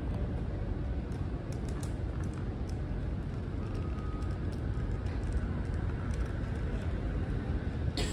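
Airport terminal ambience: a steady low rumble of background noise, with a few faint clicks about a second and a half in and a sharper click near the end.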